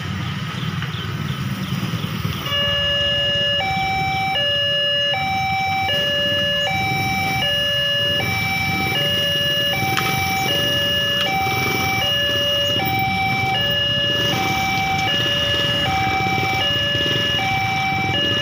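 Railway level crossing warning alarm, starting about two and a half seconds in and sounding a steady electronic signal that alternates between a lower and a higher tone, while the crossing barrier lowers for an approaching train.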